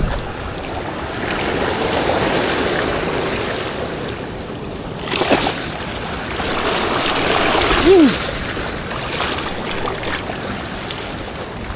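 Ocean surf washing in over lava rocks and foaming around the shoreline, swelling and easing in surges, with a sharper rush of water about five seconds in. A brief falling tone sounds about eight seconds in.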